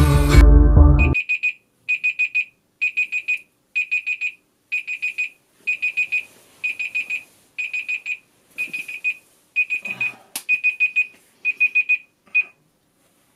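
An electronic alarm clock beeping in quick bursts of about four high beeps, repeating roughly once a second. The last burst is cut off short near the end, as the alarm is switched off. Music stops about a second in, and a faint rustle and a click come shortly before the alarm ends.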